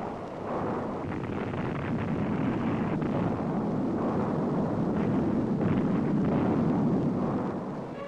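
Long rumbling roar of a dynamite rock blast and the shattered rock cascading down the canyon wall. It swells slowly and fades near the end.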